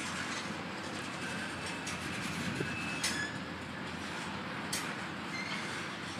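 Norfolk Southern covered hopper grain cars rolling past, a steady rumble of steel wheels on rail. Two sharp metallic clicks come about three seconds and just under five seconds in, and a faint brief wheel squeal sounds about two seconds in.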